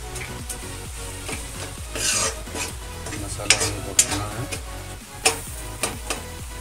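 Stainless steel ladle stirring thick onion-tomato masala frying in a metal kadhai: a soft sizzle with several sharp scrapes and knocks of the ladle against the pan.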